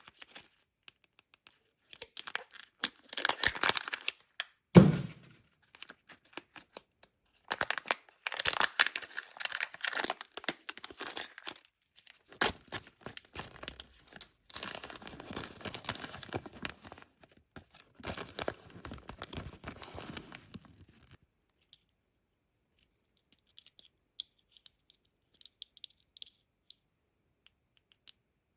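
Kinder Joy egg's foil wrapper being torn open and crinkled in crackly spells, with one dull thump about five seconds in. It then goes almost quiet apart from a few faint small clicks near the end.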